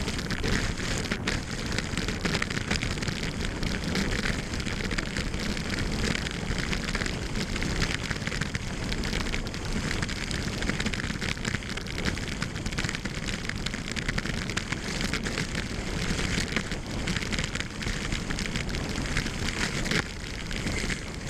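Salomon cross-country skis hissing and scraping steadily over groomed snow on a fast downhill glide, mixed with air rushing past the microphone.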